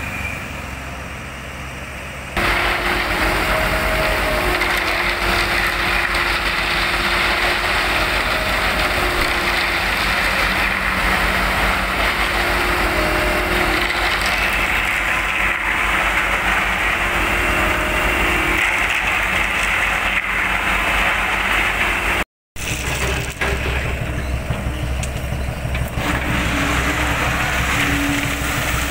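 Diesel engines of a crawler excavator and concrete mixer trucks running steadily, with a fast low engine pulse under a loud mechanical din. The sound jumps up abruptly about two seconds in and cuts out briefly near the 22-second mark.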